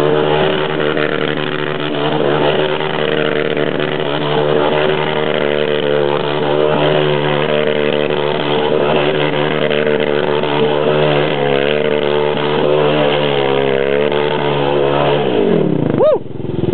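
Honda 400EX ATV's single-cylinder four-stroke engine, bored out to 440, running hard with its revs rising and falling as the throttle is worked. Near the end the revs drop away, then it is blipped once sharply.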